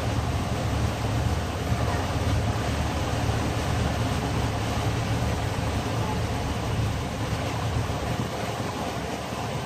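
Motorboat's engine running steadily underway, a low rumble under an even hiss of wind and water.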